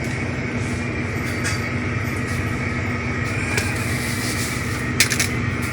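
Panasonic automatic washing machine running with a steady mechanical hum, with a few short clicks about five seconds in.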